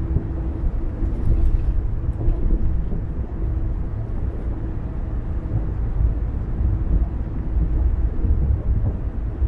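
Car driving at steady speed: a constant low rumble of road and engine noise with a faint steady hum.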